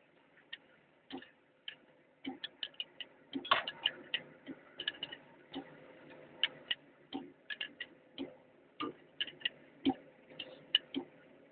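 Irregular sharp metallic clicks and clinks of a steel box-end wrench being fitted onto and turned on the bolts of a Doosan excavator engine's cylinder head, several taps a second in quick clusters.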